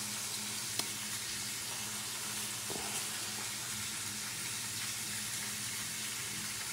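Steady sizzle of a ribeye steak frying in a pan, over a low steady hum. A faint click comes about a second in.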